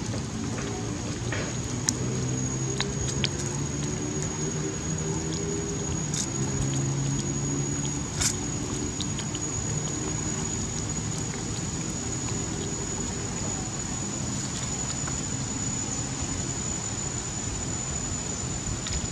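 Steady outdoor background noise with a low pitched drone through much of it and a constant high thin whine, broken by a few faint clicks.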